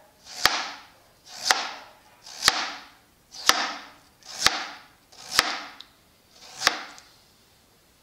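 A knife slicing a peeled potato into thin slices on a cutting board: seven unhurried strokes, about one a second, each a short rasp with a sharp click.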